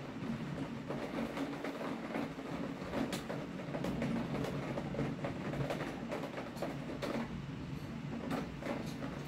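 Rain falling, with many close drops tapping irregularly over a steady low rumble.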